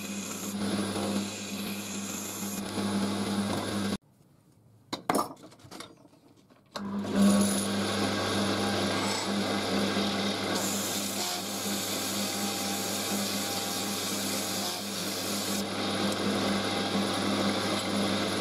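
Wood lathe running with a steady motor hum while a turning chisel cuts a thin spindle. About four seconds in the sound drops to near silence with a single click. After about three seconds the lathe runs again while the spinning spindle is sanded with sandpaper.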